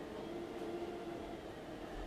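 iClebo Arte robot vacuum running: a steady hum from its motor and spinning turbo brush.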